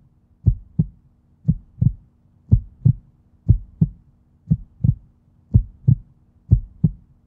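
Heartbeat sound effect: paired low thumps, lub-dub, repeating about once a second over a faint steady low hum.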